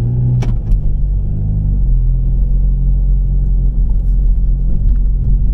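Seat Leon Cupra Mk2's turbocharged 2.0 TFSI four-cylinder heard from inside the cabin while driving: a steady low engine and road rumble, with the engine note shifting about two seconds in. There is one short click about half a second in.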